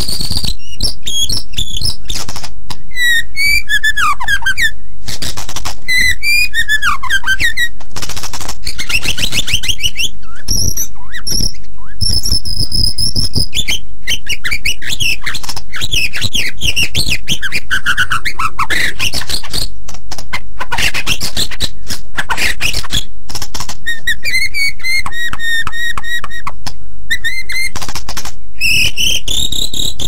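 White-rumped shama (murai batu) singing without pause in full 'gacor' song: a loud, fast, ever-changing run of clear whistles, rising and falling glides, trills and chattering notes.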